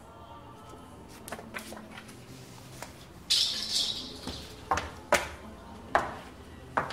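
Radio-drama sound effects of small handling noises in a room: several separate sharp clicks and knocks, with a brief high rattle about three seconds in, the loudest moment, over faint steady background music.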